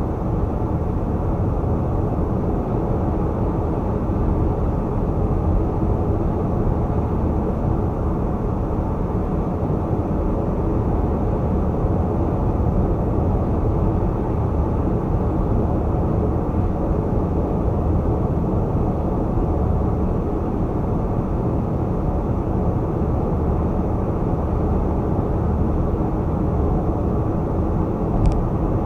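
Steady low road noise of a car driving at highway speed: tyre and engine rumble, with a single short click near the end.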